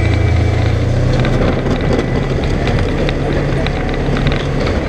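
Polaris General XP side-by-side's engine running steadily while plowing snow, with scattered clicks and rattles over the drone.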